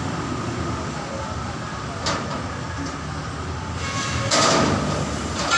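Steady street traffic rumble beside a busy road, with a sharp click about two seconds in and a louder rushing noise for about half a second near the end.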